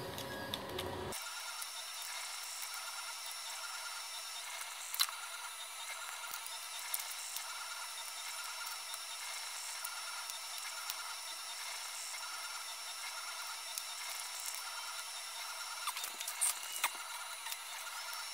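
Plastic mould parts and a screwdriver handled and knocked together as a silicone tyre is pried out of a 3D-printed mould, giving a few sharp clicks and taps, with a cluster near the end, over a steady thin hiss.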